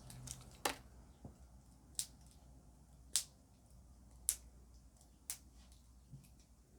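Five light, sharp clicks, about one a second, from handling small plastic cosmetics packaging.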